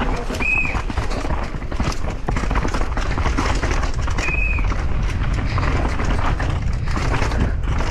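Mountain bike rolling fast over rough, rocky trail, the tyres and frame rattling and knocking continuously over wind rumble. Two brief high squeals come about half a second in and again about four seconds later.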